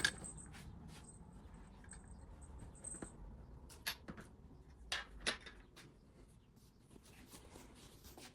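A kitten moving about and playing, making scattered light knocks and clicks with soft rustling between them; the sharpest ones come at the start and about four and five seconds in.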